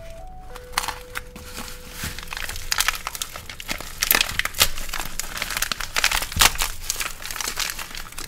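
Plastic packaging crinkling and tearing as it is pulled open by hand. It is a dense run of crackles that gets busier a few seconds in.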